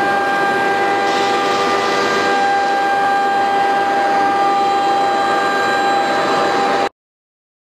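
ATC CNC wood router's spindle running at speed while carving a wooden door panel: a steady high whine over a continuous rushing noise. It cuts off abruptly near the end.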